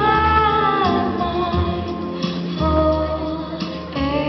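Music with singing: held, gliding vocal notes over sustained chords and a low bass.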